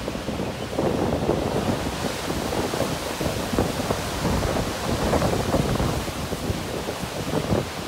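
Near-hurricane-force wind gusts buffeting the microphone, a rough, fluttering rumble that picks up about a second in and stays strong.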